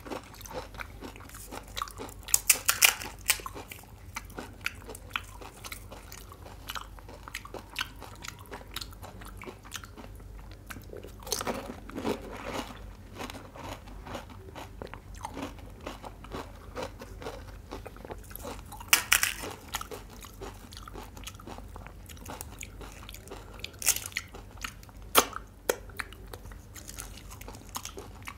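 Close-miked eating of pani puri: crisp hollow puris crunched and chewed, with constant small crackles and louder crunches about 3, 12, 19 and 25 seconds in.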